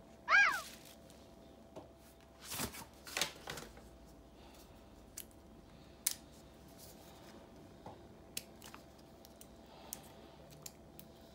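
Hands handling packaging and a small white USB power adapter: a short high squeak near the start, paper rustling around three seconds in, then scattered small clicks as the adapter's plug prongs are worked.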